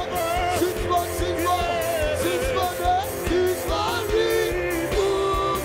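Background music with a steady low beat and a melody line on top.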